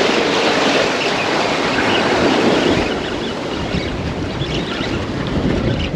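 Steady rushing noise of wind and waves, with wind buffeting the microphone, a little louder in the first half.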